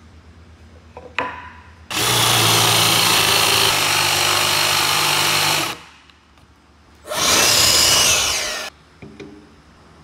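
Cordless drill with a Forstner bit boring into a wooden blank: it runs steadily for almost four seconds, stops, then runs again for about a second and a half, its pitch rising and falling. A small knock comes just before the first run.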